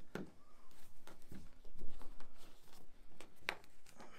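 Hands handling and pulling a braided rope loop, with scattered rustles and soft knocks and one sharper click about three and a half seconds in.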